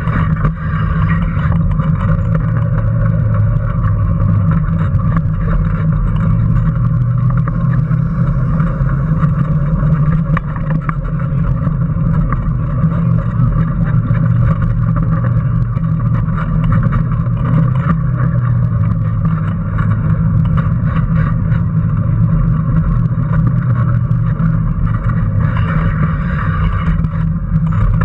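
Electric drive of a Power Racing Series car, heard from a camera mounted on the car: a steady motor hum under way, with frequent small clicks and rattles from the car.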